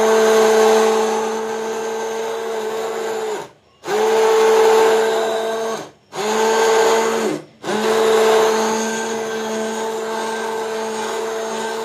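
Electric hand blender running in a steel bowl, pureeing mango pulp with milk and sugar: a steady motor hum, switched off and on again three times with short pauses, each restart spinning up briefly.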